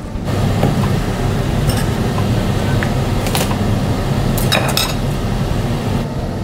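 A steady rushing noise with a few light clinks of metal utensils against a cooking pot and dishes.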